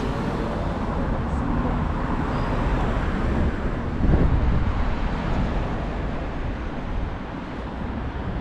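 Road traffic noise, with a vehicle passing close by, loudest about four seconds in.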